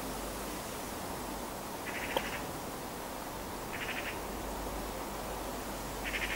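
An animal's short, buzzy trill, about half a second long, repeating about every two seconds over a steady background hiss, with a single sharp click about two seconds in.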